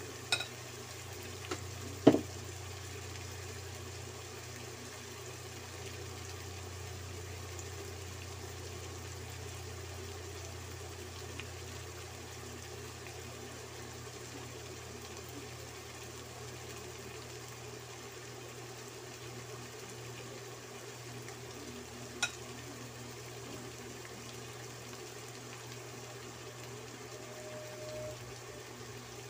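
Chicken gizzards and onion frying in a nonstick wok: a steady, even sizzle over a low hum. A few sharp knocks break in near the start, the loudest about two seconds in, and one more about two-thirds of the way through.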